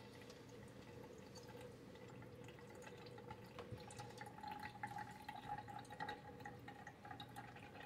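PowerXL Grind & Go Plus coffee maker brewing: faint irregular drips and small ticks of water, with a faint steady tone coming in about four seconds in.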